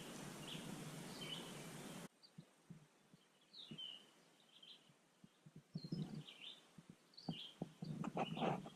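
Faint birds chirping in short, scattered calls. For the first two seconds a steady hiss sits under them, then cuts off abruptly. After that come a few soft low knocks and rustles between the chirps.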